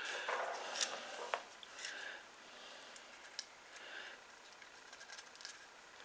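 Faint handling noises of small carburetor parts: scattered light clicks and rustles as gloved hands pick them up off a paper shop towel, with a couple of sharper clicks in the first second and a half.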